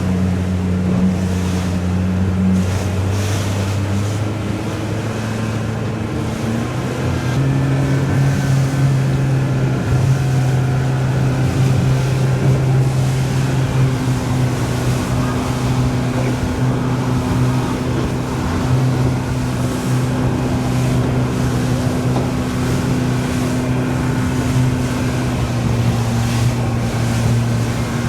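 Motorboat engine running under way. Its pitch steps up about seven seconds in as the revs climb, then holds steady, with wind and water noise rushing over it.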